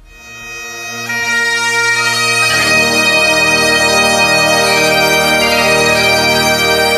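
Bagpipe music: a drone swells in, the melody comes in about a second in, and a deeper drone joins about two and a half seconds in, all held steady.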